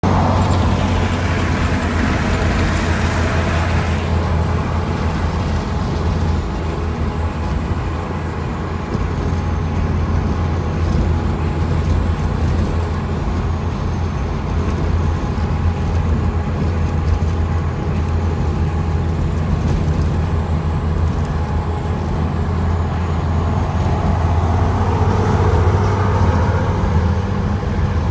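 Steady highway road noise heard from inside a car cruising at speed: a constant low drone of engine and tyres with a rushing haze above it. A brighter hiss of wind rides on top for the first four seconds, then cuts off suddenly.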